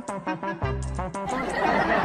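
Upbeat background music with a steady bass beat. About a second and a half in, a burst of voices and laughter comes in over it.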